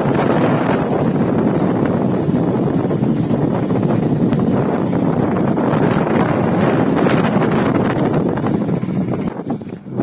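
Sonalika tractor's diesel engine running steadily as it pulls a maize planter, mixed with heavy wind buffeting on the microphone. The sound drops in level shortly before the end.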